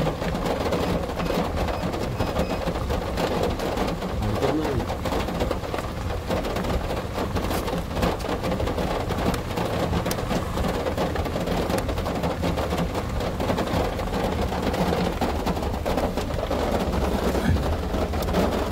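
Heavy rain falling steadily, a dense pattering of drops over a low, steady rumble.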